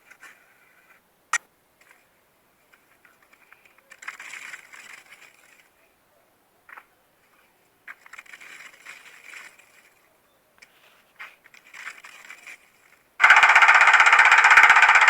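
Machinery in a factory: a sharp click, then short spells of fast mechanical rattling with quiet gaps. Near the end a much louder, steady rattling noise starts suddenly.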